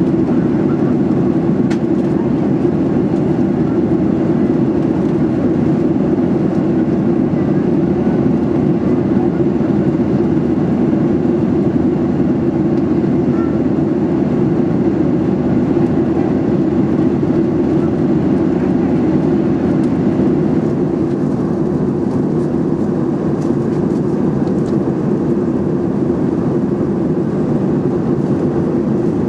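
Steady in-flight cabin noise of a Boeing 737-800: its CFM56-7B engines and the rush of air along the fuselage, heard inside the cabin from a rear window seat. It is an even, loud drone, a little duller in its upper range from about two-thirds of the way through.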